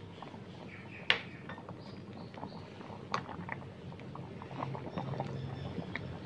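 A coconut-wood spoon stirs pumpkin and sago in a small electric pot of boiling sweet liquid. The spoon knocks and clicks against the pot's metal side, most sharply about a second in and again about three seconds in, over soft bubbling.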